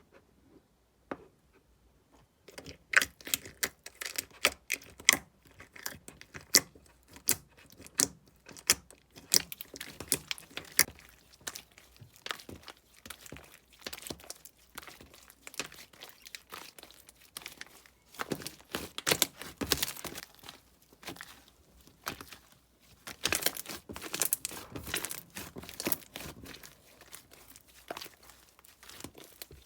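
Slime being squished and pressed by hand: a dense, irregular run of crackling pops and clicks, starting about two and a half seconds in.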